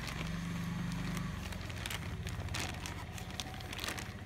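Straw and polythene bag rustling and crinkling in short scattered crackles as straw is pressed down into the bag, over a steady low hum.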